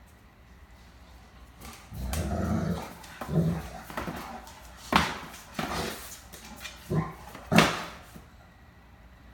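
Great Dane vocalizing in play to get a cat to join in: a low grumbling growl about two seconds in, then several short sharp sounds, the loudest near the end.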